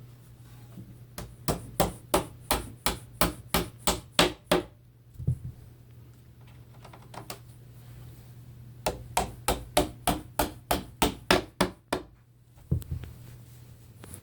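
Two runs of quick, sharp taps, about three a second, driving IKEA plastic nails into a Brimnes bed drawer's side panel until they are seated.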